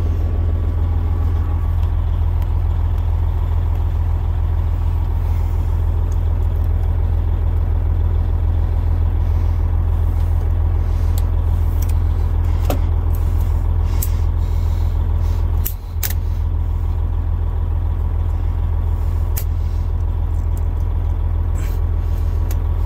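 Heavy truck's diesel engine idling steadily, with a scattering of sharp clicks and snaps from a plastic dash switch being pried out of its hole.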